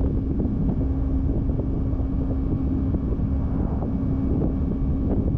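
Yamaha YZF-R3's 321cc parallel-twin engine running at a steady cruising speed, holding one constant pitch, under heavy wind rumble on the rider's microphone.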